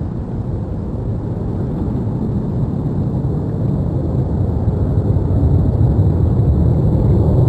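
Rockwell B-1B Lancer's four afterburning turbofan engines running in afterburner: a deep, continuous rumble that grows steadily louder.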